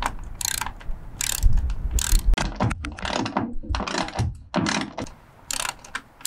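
Ratchet wrench clicking in repeated strokes, roughly two a second, as it tightens a 3/8-inch grade 8 hex-head bolt through the bus's metal roof, with low knocks of the metal underneath. There is a short pause about five seconds in.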